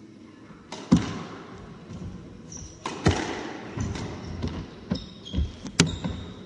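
Squash rally: loud, echoing cracks of the ball off the racket and walls about every two seconds, with smaller knocks of footsteps on the wooden court floor and a few short, high shoe squeaks.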